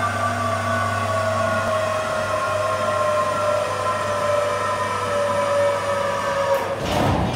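Electric truck e-axle motor and gearbox running under load on a dynamometer: a steady low hum under several whining tones that slowly fall in pitch as the load torque climbs. A loud rush of noise comes in near the end.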